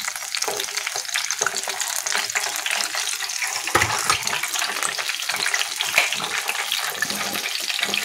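Ragi-batter fritters deep-frying in hot oil: a steady crackling sizzle, with a few light knocks scattered through it.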